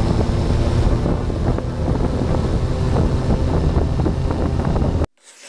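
Wind buffeting the microphone of a drone's camera lying on the ground, a loud, rough rumble that cuts off suddenly near the end.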